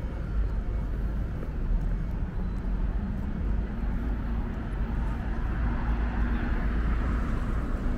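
City street traffic: a steady low rumble of passing vehicles. A steady hum joins about three seconds in.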